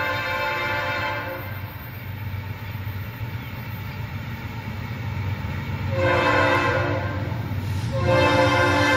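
Norfolk Southern diesel freight locomotive's air horn sounding a chord of several notes for the grade crossing as the train approaches. The horn breaks off about a second and a half in and comes back louder about six seconds in, with a short break just before the end, over the steady rumble of the diesel engines.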